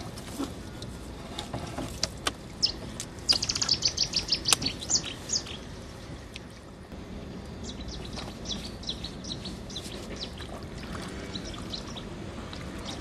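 Small birds chirping: a fast run of high chirps about three seconds in and another, fainter run later, over a steady background of water noise.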